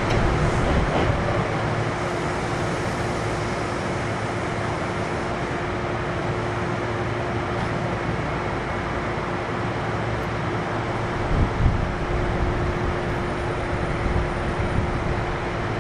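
Kintetsu 1233 series electric train standing at a station, heard inside the car: its onboard equipment gives a steady hum with a held mid-pitched tone. A couple of brief knocks come about eleven seconds in.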